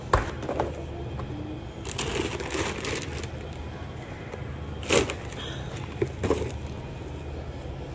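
A cardboard case of yogurt being handled, with a few sharp knocks and a rustling scrape, the loudest just after the start and about five seconds in, over a low steady rumble.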